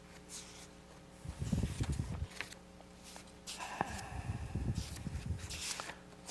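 Sheets of paper rustling as they are handled and turned close to a clip-on microphone, in two spells: about a second in, and again from about three and a half seconds to near the end. A faint steady hum runs underneath.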